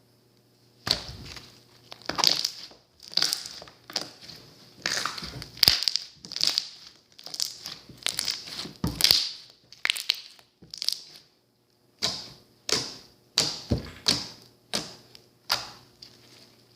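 Slime being squeezed and pressed by hand close to the microphone, giving a series of crackling, popping squelches about one or two a second, with a short pause about two-thirds of the way in.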